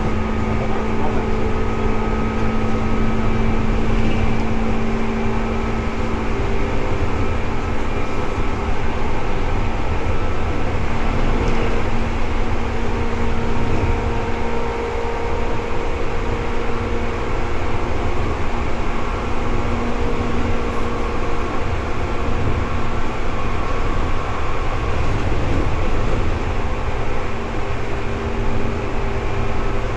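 Seibu 2000 series electric train running, heard inside the car above the line breaker: a steady low rumble from the wheels on the rails, with a steady electrical hum.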